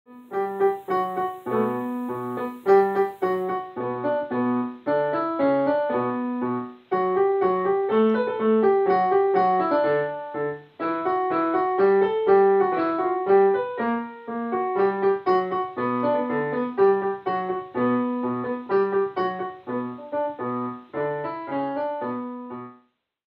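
Piano playing a melody over a steady, repeating bass pattern. The playing breaks off briefly a few times.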